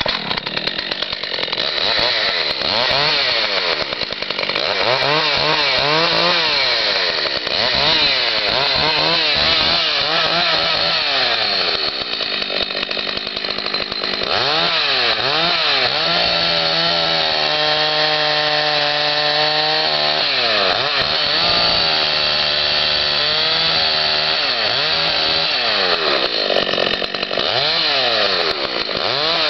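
Husqvarna 61 chainsaw's two-stroke engine running loud, its pitch repeatedly rising and falling as it is revved and cuts through logs, holding a steady pitch for a few seconds a little past the middle.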